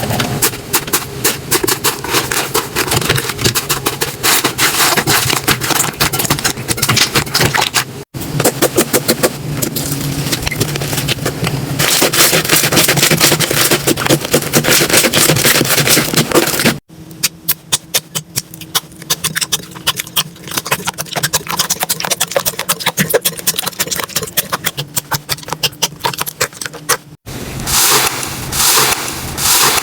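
Slime being squished and poked, with dense crackling and popping clicks. The sound comes in four stretches broken by sudden cuts, and the third stretch is quieter.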